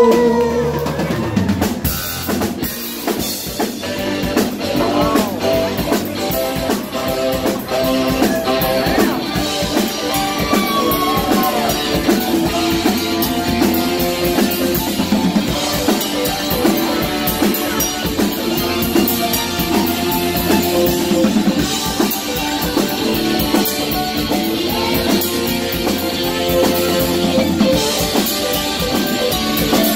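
Live band playing at full volume: drum kit keeping a steady beat under bass and electric guitar, with a saxophone playing the lead melody through a microphone.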